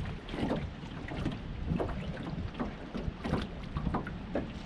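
Water slapping and sloshing against the hull of a small John boat in irregular little splashes, over a steady rumble of wind on the microphone.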